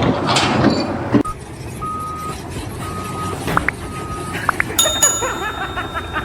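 A loud noisy clatter for about the first second, then a vehicle's reversing alarm beeping about once a second, four beeps of one steady pitch. A higher ringing tone comes in near the end.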